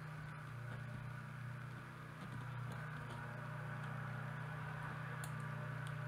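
Steady low hum, with a few faint clicks of small hand tools working a tiny model buckle.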